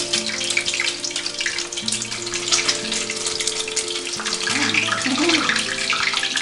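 Egg-coated slices of milk-soaked bread frying in hot vegetable oil in a frying pan: a steady, dense sizzle full of fine crackles.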